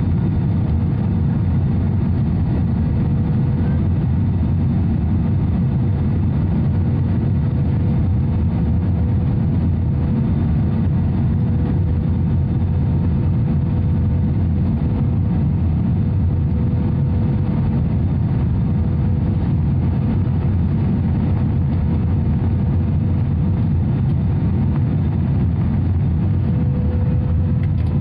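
Airbus A320 cabin noise on final approach, heard inside the cabin over the wing: a steady rumble of the jet engines and rushing air, with a faint steady whine.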